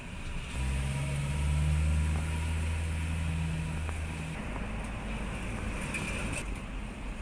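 A low, steady mechanical hum, like a motor or engine, starts about half a second in and stops about four seconds in, over a steady background hiss. Near the end come a few faint paper rustles as manual pages are turned.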